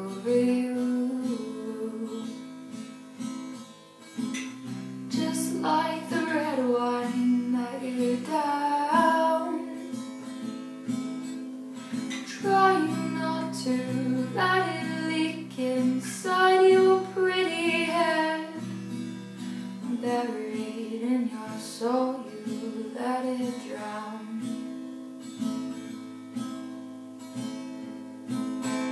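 One voice singing over a strummed acoustic guitar. The singing comes in phrases with short breaks between them, while the guitar keeps playing underneath.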